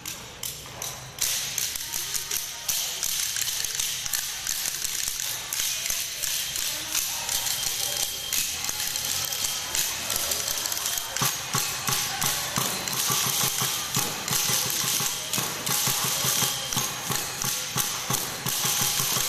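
Many wooden sticks clacked by a group, a dense, uneven run of sharp clicks and taps that starts about a second in, with duller thuds joining partway through.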